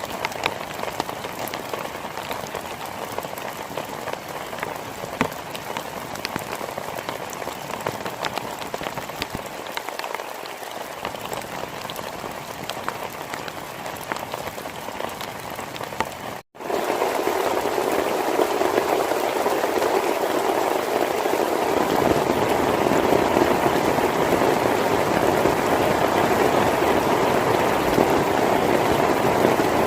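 Heavy rain falling steadily, with many individual drops ticking sharply. About halfway through, the sound cuts out for an instant and comes back louder and denser.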